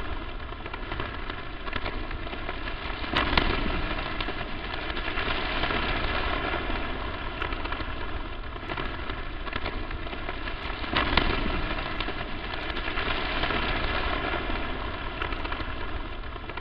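Crackling static noise: a steady hiss with scattered pops and crackles, two louder bursts of crackle about 3 and 11 seconds in.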